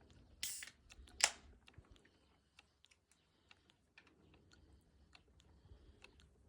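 Trapped air burping out of the hydraulic fluid as a hydraulic system is bled: two short noisy bursts about half a second and just over a second in, then scattered small clicks and pops.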